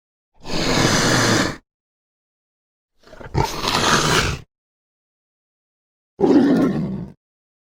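Indochinese tiger roaring: three separate roars, each a second or so long, with dead silence between them.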